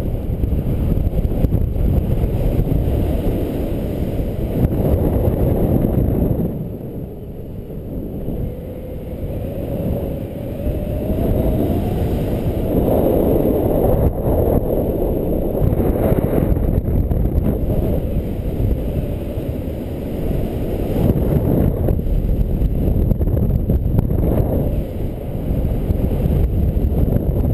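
Wind buffeting a camera microphone on a paraglider in flight: a loud, low rumbling rush that rises and falls, easing off for a few seconds about a quarter of the way in.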